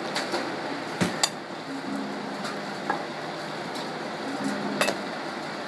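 Batting-cage sounds: a few sharp metallic pings and knocks of balls and bats, the loudest pair about a second in and another near the end, over a steady background hum.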